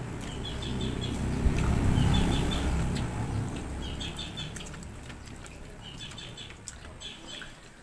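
A passing road vehicle, its low rumble swelling to a peak about two seconds in and then fading, with small birds chirping in short repeated bursts and a few faint clicks of eating.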